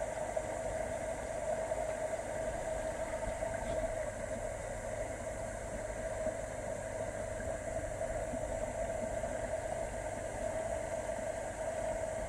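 Steady rush of a shallow rocky stream flowing over stones, an even hiss with no breaks.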